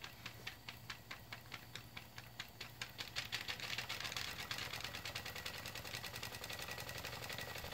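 Stuart Williamson model steam engine chugging away quietly on live steam, a faint, even run of ticking beats. The beats come about four a second at first, then quicken and run closer together about three seconds in.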